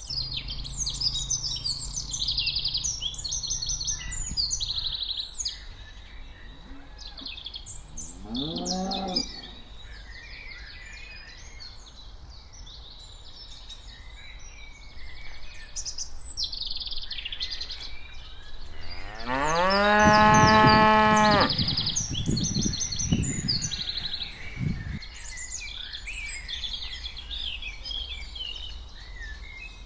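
Cattle mooing: one short moo, then near the middle a long, louder moo, with songbirds chirping throughout.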